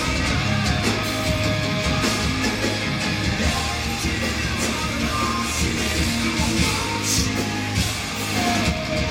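Live rock band playing: electric guitars, drums and a lead vocal, heard from within the audience.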